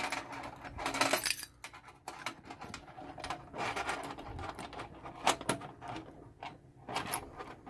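A bunch of keys jangling and clicking against a NAPEC 1300 high-security padlock as a key is fumbled toward its keyway, with a sharp metal click right at the start and scattered small rattles after.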